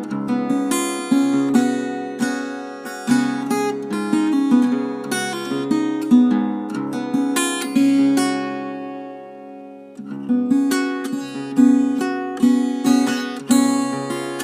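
Background music: strummed acoustic guitar. One chord rings out and fades over a couple of seconds from about eight seconds in, before the strumming starts again.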